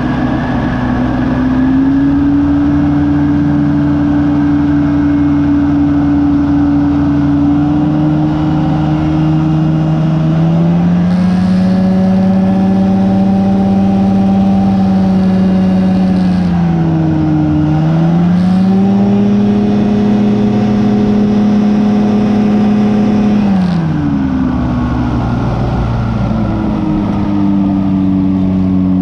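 Rotax 503 two-stroke twin engine of a Phantom X1 ultralight running steadily under power. About a third of the way in the pitch rises as the throttle is opened, dips briefly and comes back up past the middle, then drops back to the lower setting near the end.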